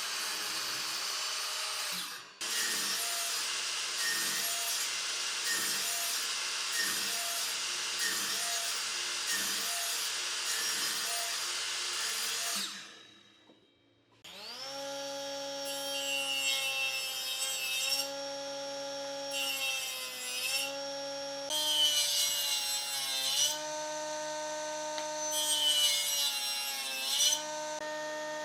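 Woodworking tools working wood. First a dense, rasping sawing or sanding noise with a faint regular beat for about twelve seconds, stopping abruptly. After a short pause a power tool motor starts and runs, its pitch dipping as it takes load, with three bursts of cutting noise in the second half.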